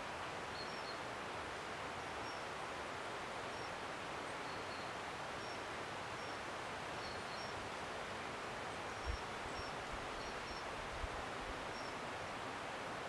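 Steady outdoor woodland ambience, an even rustling hiss, with faint short high bird chirps repeating every second or so. A few brief low thumps stand out about nine and eleven seconds in.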